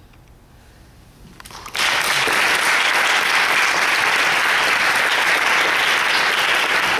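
Audience applause breaking out suddenly just under two seconds in, after a quiet pause at the end of the music, then carrying on steadily.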